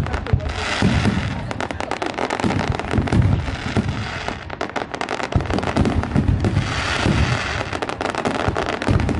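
Fireworks display at full barrage: many aerial shells bursting in quick succession, a dense run of sharp bangs and crackling over low booms.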